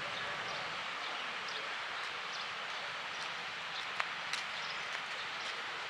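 Steady seaside ambience: an even hiss of wind and shore noise, with a few sharp clicks near the middle.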